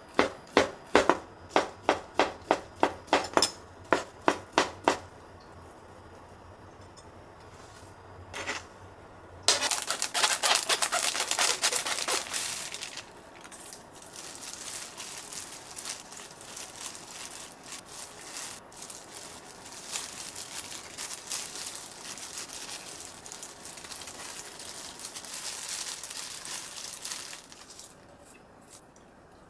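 Kitchen knife chopping a thin egg crepe on a cutting board, about three to four even strokes a second, stopping about five seconds in. Later, a loud crinkling of disposable plastic gloves, then softer plastic rustling as gloved hands handle the egg strips.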